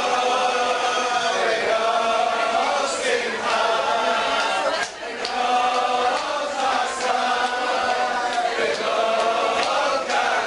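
A group of men singing together in unison, one sung phrase after another with short breaks between them.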